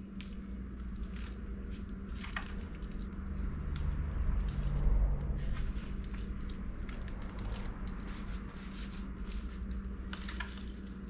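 Wet squishing and soft slapping as raw salmon egg skeins are flipped over by gloved hands in a metal pan of egg cure, with scattered small ticks, a little louder around the middle.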